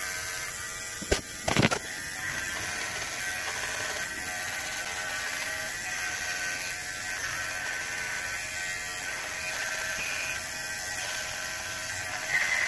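Electric hair clippers buzzing steadily while trimming hair, with two sharp clicks between one and two seconds in.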